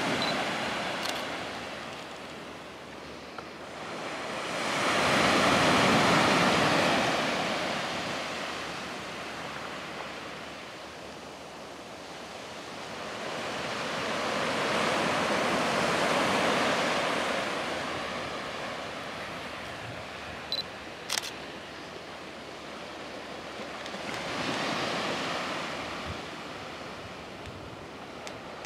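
Ocean surf: waves washing in and drawing back, swelling and fading about every ten seconds, three times. Two short sharp clicks come about three quarters of the way through.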